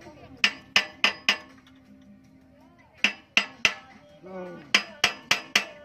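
Sharp metal-on-metal strikes with a ringing tail, in three quick groups of four, three and four blows, as the mechanics work on a công nông tractor's gearbox.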